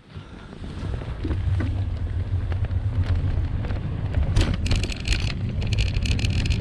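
Wind rumbling on the microphone of a camera riding on a moving bicycle, growing over the first couple of seconds as the bike gets under way. From about four and a half seconds in, a rapid ticking runs over the rumble.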